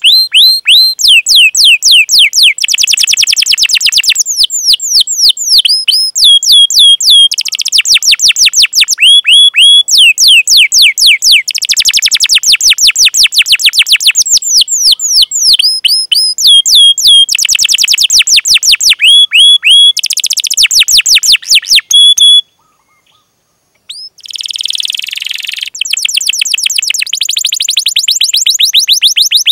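Domestic canary singing a fast, loud song of rapidly repeated down-slurred chirps and rolling trills. The song stops for about a second and a half near the end, then resumes with a harsher, buzzy phrase before the quick chirps return.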